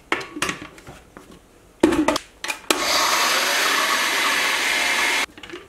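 Clicks and a knock as the lid goes onto a glass blender jar and the jar is seated on its base. Then an Oster blender runs steadily for about two and a half seconds, grinding dry oats into flour, and cuts off suddenly.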